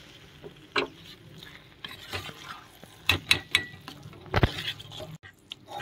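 A metal spoon stirs and mashes thick khichdi in a stainless steel pot, with irregular clinks and scrapes of steel on steel. There is a cluster of clinks about three seconds in and a louder knock against the pot a little after four seconds.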